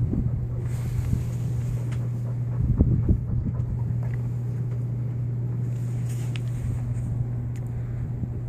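A steady low hum with wind rumbling on the microphone, and a few soft knocks about three seconds in.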